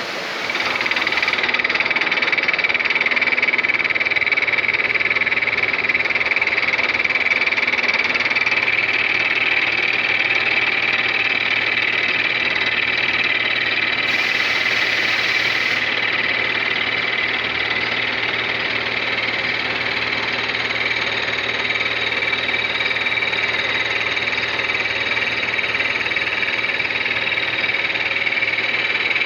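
Manual milling machine running steadily, a constant high whine over an even mechanical noise.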